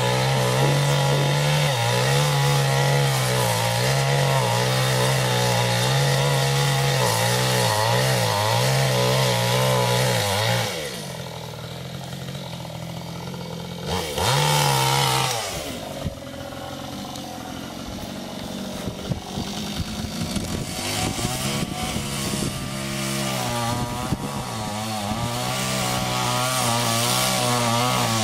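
Chainsaw running at high speed for about ten seconds, then dropping to a lower idle, revving up briefly, and climbing back to high speed near the end.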